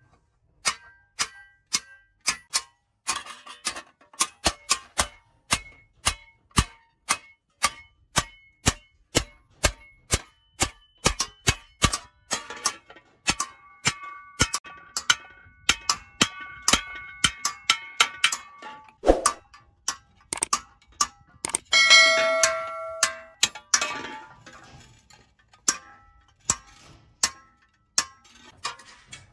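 Hand hammer striking a sheet-iron kassi (hoe) blade and a punch held against it, about two sharp metallic blows a second, each with a short ring. A dull thud comes a little past the middle, followed shortly by one louder, longer ringing clang.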